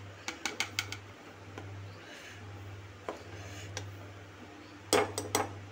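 A spoon stirring milky vermicelli kheer in a cooking pot: a few quick clicks of the spoon against the pot in the first second, one about three seconds in, and a cluster near the end, over a faint steady low hum.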